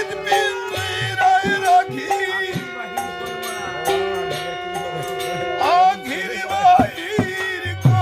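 Bengali devotional hari sangeet music: a steady held drone note under a wavering melody line, with deep hand-drum strokes.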